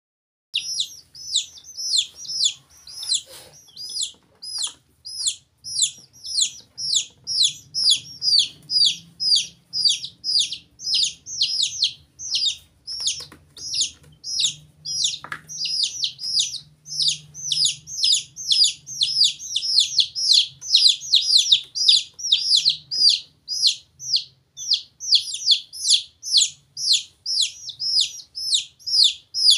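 Young chicks and a duckling peeping without pause: high, falling peeps, about two or three a second.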